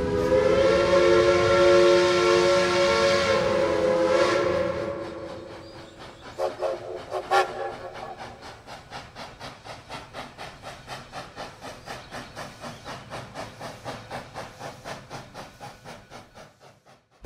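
Steam locomotive whistle blowing one long, loud blast of about four and a half seconds, then a short toot. After that comes a steady clicking rhythm of a train running on the rails, about three beats a second, fading away near the end.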